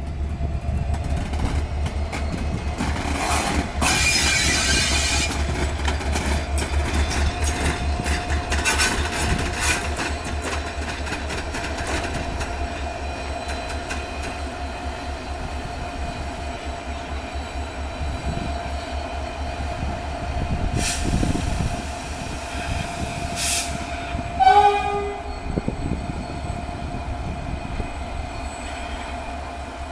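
A train running with a steady low, pulsing rumble and a long, thin, steady whine. There are a few short bursts of hiss, and a brief horn blast about 24 seconds in.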